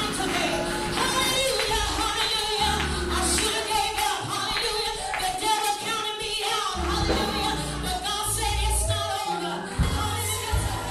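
Gospel music playing: a sung melody over instrumental backing with bass notes.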